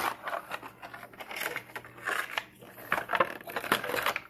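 Handling noise as a compact phone tripod is lifted out of its moulded packaging tray: irregular crinkling and creaking of the tray with small clicks and knocks.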